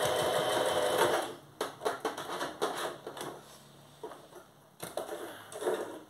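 Electric sewing machine stitching, then stopping about a second in. After it come scattered light clicks and rustling of cotton fabric as the stitched piece is taken out of the machine.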